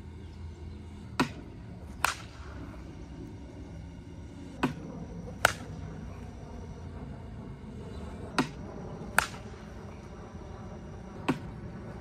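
Four rounds of soft-toss batting practice. In each, a soft-toss machine launches a ball with a sharp click, and about a second later a Monsta Torch Hulk Platinum slowpitch softball bat strikes it with a sharp crack. The rounds come about three and a half seconds apart.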